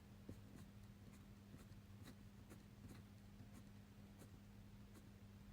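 Faint scratching of a 0.4 mm fineliner pen drawing short strokes on paper, about two to three a second, over a low steady hum.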